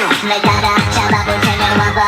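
Electronic dance music with a steady kick-drum beat, about three beats a second. The bass drops out briefly at the start under a falling sweep, and the beat comes back about half a second in.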